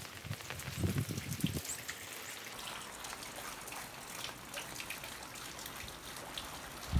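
Rain falling and dripping, many small drop ticks over a steady hiss, with a short low rumble about a second in.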